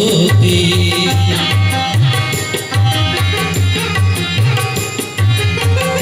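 Music with a steady, regular drum beat under melody instruments.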